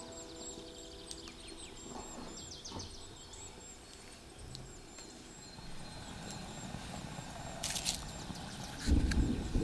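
Faint birds chirping: short, repeated high calls, with a few soft knocks. A brief hiss comes about three-quarters of the way in, and a louder low rumble starts near the end.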